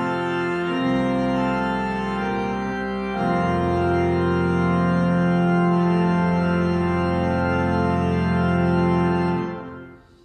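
Church organ playing sustained chords, then holding a long final chord from about three seconds in that dies away near the end.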